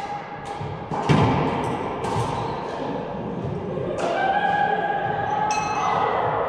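A racquetball thudding off the floor and walls of an enclosed court, each hit ringing in the hard-walled room, with the loudest hit about a second in. Between about four and six seconds a held pitched sound runs under the thuds.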